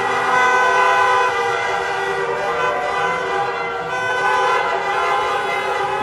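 Many car horns honking together in a street celebration, long overlapping blasts held without a break, with a cheering crowd.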